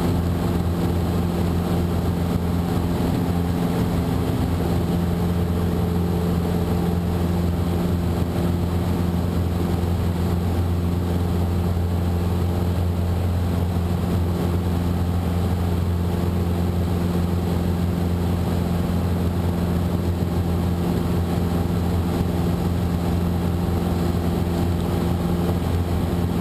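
Cessna 150's four-cylinder Continental O-200 engine and propeller running steadily in flight, heard from inside the cabin as an even, unchanging drone.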